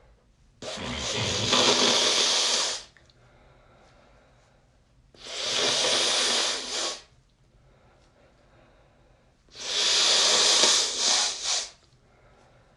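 Three long, soft nose blows into a folded tissue, each about two seconds with a short pause between, as air is pushed out through a congested, mucus-filled nose.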